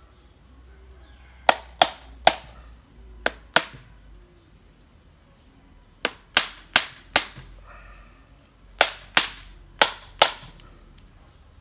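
Large knife striking the hard shell of a roasted coconut to crack it open: about a dozen sharp cracks in three bunches of four or five quick strikes.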